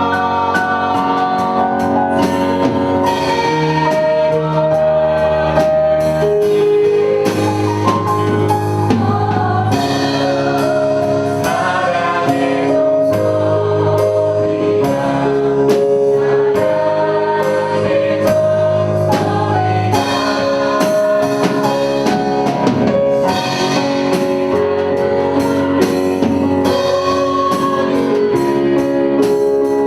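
Gospel worship song: voices singing together over instrumental accompaniment with a steady drum beat.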